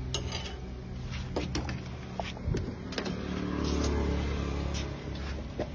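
Motor-vehicle traffic running past, its engine noise swelling about three to four seconds in, with scattered light clinks of a steel ladle and dishes.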